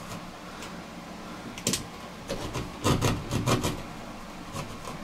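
Knife blade scraping along the edge of a plastic towel-bar bracket on a painted wall, cutting it free in short scratchy strokes, busiest about three seconds in.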